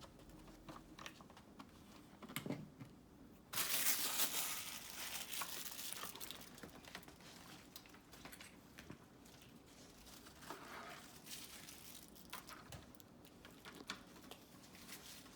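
Hands crinkling and rustling something crinkly, with small clicks and knocks of handling. A louder burst of rustling starts about three and a half seconds in and fades away over the next few seconds.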